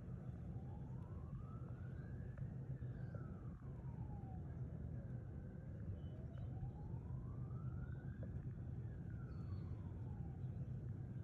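A distant siren wailing, its pitch rising and falling slowly about every six seconds, over a steady low rumble.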